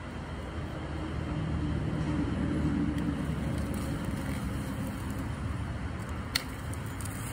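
Low engine rumble of a passing vehicle, swelling to its loudest a few seconds in and then easing off, with one sharp click about six seconds in.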